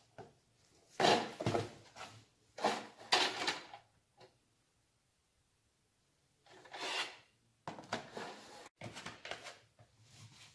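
Sodium acetate powder poured from a plastic jug into a plastic container on a kitchen scale, in about five short bursts of pouring and scraping with pauses between.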